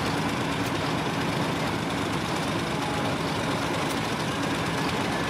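Diesel farm tractor engine working steadily under load as it drags a weighted pulling sled.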